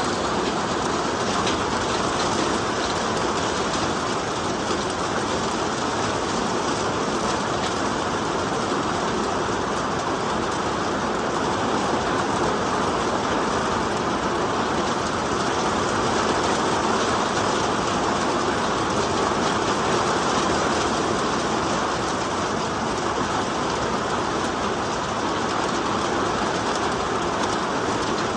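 Steady rainfall: a dense, even hiss of falling rain that keeps a constant level throughout.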